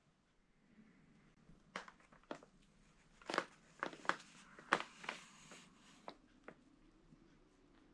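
Cardboard pizza boxes crackling and creaking under a sitting cat's weight as it shifts while grooming: a scatter of sharp, short cracks, loudest in the middle.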